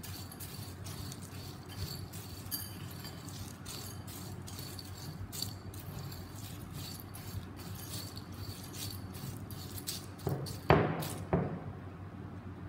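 A spoon stirring crisp deep-fried chana dal in a glass bowl: a continuous dry rattle and clicking of the lentils against the spoon and glass, with a few louder knocks near the end.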